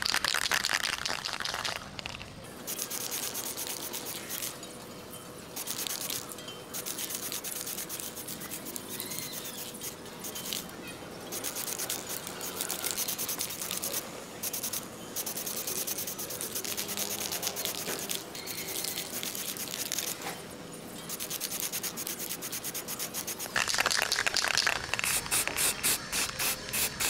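Aerosol spray paint can hissing as paint is sprayed on, with a loud spray burst at the start, quieter spraying in between, and a second loud stretch near the end that breaks into quick short squirts.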